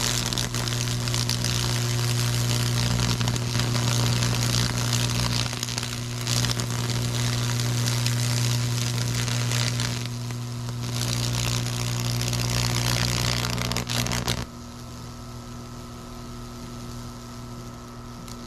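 Microwave-oven-transformer Lichtenberg fractal burner switched on and arcing through water-soaked wood: a loud electrical hum under a dense crackling hiss as the arcs burn across the board. About fourteen seconds in the crackle cuts out suddenly, leaving a quieter steady hum.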